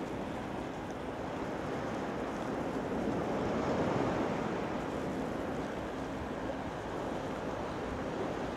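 Sea surf washing against a concrete tetrapod breakwater, with wind on the microphone: a steady wash that swells a little about three to four seconds in.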